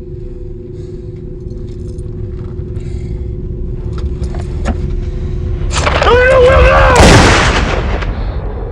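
A low rumble builds under a few small clicks at the car's trunk. About six seconds in someone cries out, and about seven seconds in a single loud gunshot goes off, its echo dying away slowly.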